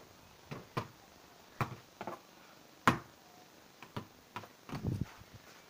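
Balls knocking against a garden basketball hoop's backboard and rim and bouncing on paving: a string of sharp, unevenly spaced knocks, the loudest about three seconds in.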